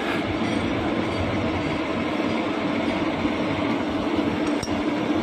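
CNC lathe running: a steady mechanical hum with a constant low drone, as the spindle turns the bar stock in the chuck. A single sharp click near the end.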